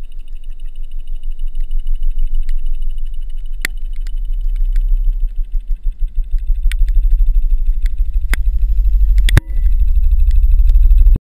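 Low, muffled rumble heard through a GoPro's sealed underwater housing as the pressure builds, growing louder in waves. Several sharp cracks and clicks come from the housing straining, the loudest pair about nine seconds in. The sound cuts off dead near the end as the camera stops recording while being crushed.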